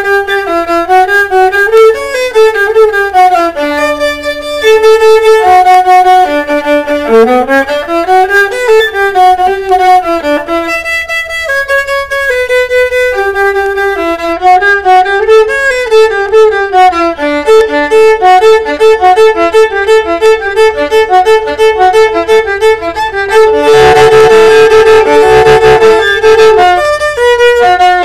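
Solo viola bowed without accompaniment, playing fast running passages and quickly repeated notes, growing louder and fuller for a few seconds near the end.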